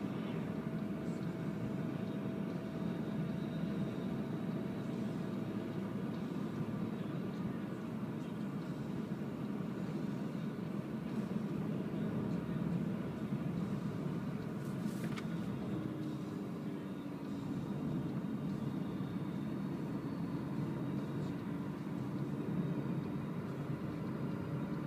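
Steady tyre and road noise inside the cabin of a Renault ZOE electric car driving along, with faint steady tones above the noise and no engine.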